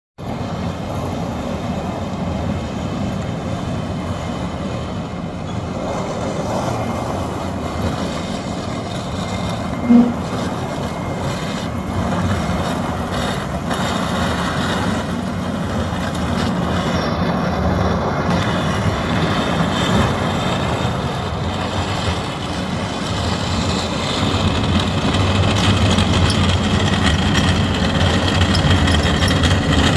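Motor grader scraping ice off the road with its steel blade, its diesel engine running under load, growing louder as it approaches near the end. A short pitched toot about ten seconds in stands out above the steady noise.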